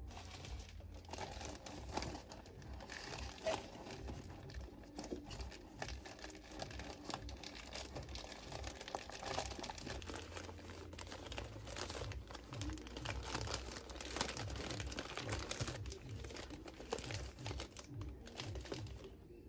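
Thin black plastic wrapping crinkling and rustling with irregular crackles as hands handle it and unwrap a bouquet of artificial roses.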